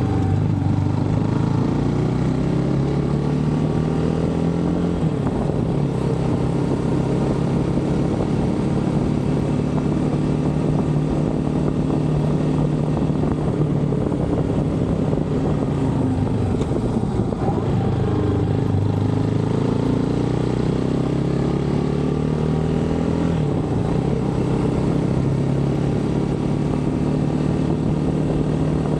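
GPX motorcycle engine running under way. It climbs in pitch as it accelerates and drops sharply at an upshift, about five seconds in and again about twenty-three seconds in, and holds a steady pitch in between.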